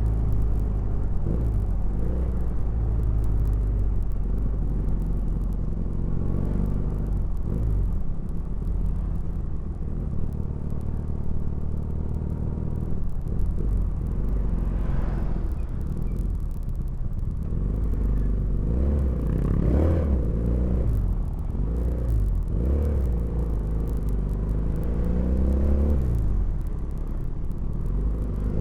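Custom 320 cc inline two-cylinder motorcycle engine, built from two Honda GL Pro engines, running through its exhaust and revved up and down several times.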